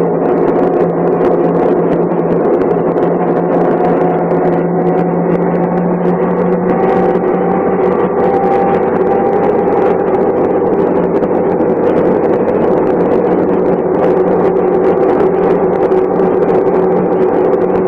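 Diesel engine of a MAN SL 202 city bus running at a steady speed, heard from on board the bus. The engine note holds steady with no gear change.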